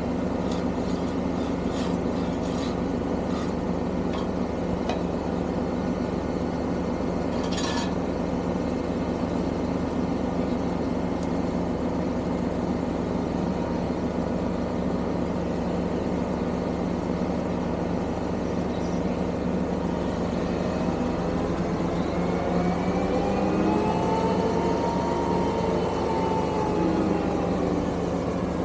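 Lorry engine running steadily, with a few light clicks and one sharp knock about eight seconds in; near the end the engine speeds up and then settles back down.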